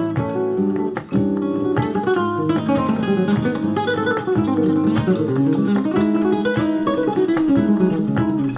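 Acoustic guitar music, busy plucked and strummed in a flamenco-like style, played back through a small JBL SCS 178 satellite speaker as a listening test. It has almost no deep bass and dips briefly about a second in.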